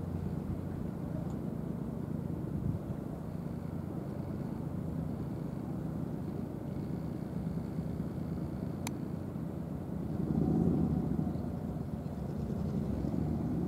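Pilot launch's engine idling with a steady low rumble that swells briefly about ten seconds in. A single sharp click comes near nine seconds.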